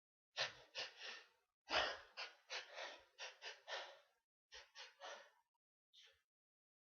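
A person's rapid, gasping breaths: runs of short, sharp inhalations, about three a second, as a sneeze builds up.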